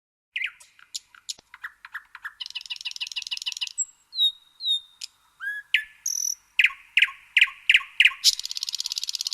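A songbird singing a varied song: sharp chipping notes, a fast buzzy trill, clear whistled slurred notes, then a run of loud evenly spaced notes ending in another buzzy trill.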